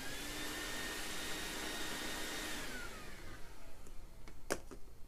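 Vacuum cleaner running with a steady motor whine and rush of air, then switched off about two and a half seconds in, its pitch falling as the motor winds down. A single sharp click comes near the end.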